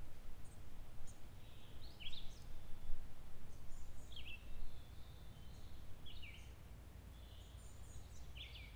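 Birds calling over a low steady rumble: one bird repeats a short sweeping call about every two seconds, with fainter high chirps from others.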